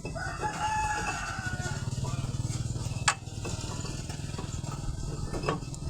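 A small engine running steadily with a fast, even low pulse, with a sharp tap about three seconds in and a lighter one near the end.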